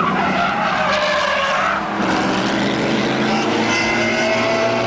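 Sports car engine running at high revs as the car speeds along the track, its engine note changing pitch in the first two seconds and again near the end.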